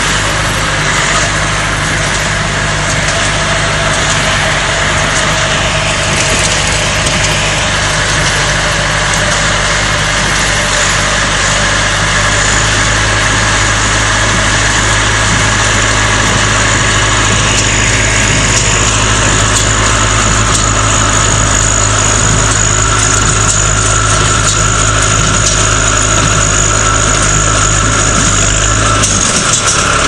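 Farm tractor's engine running steadily while it pulls a small square baler that is baling hay, the baler's pickup and plunger working along with it.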